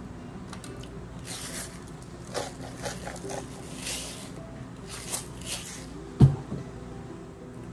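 A seasoning shaker shaken over a plate of food in several short hissing bursts, then set down on the table with one loud knock about six seconds in.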